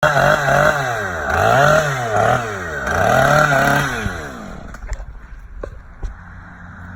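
Two-stroke chainsaw revved up and down repeatedly, then dropping back to a lower, quieter idle about four seconds in, with a few sharp clicks while it idles.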